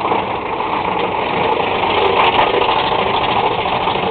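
Big Thunder Mountain Railroad roller-coaster mine train running along its track: a loud, steady mechanical rumble and rattle.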